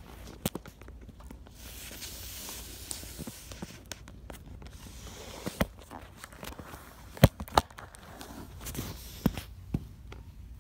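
Kittens scuffling on a wooden floor right by a handheld phone: scattered sharp knocks, the loudest about two-thirds of the way through, and two stretches of hissy rustling.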